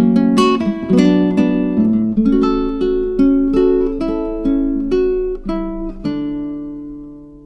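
Background music of plucked acoustic guitar, with the last chord ringing out and fading near the end.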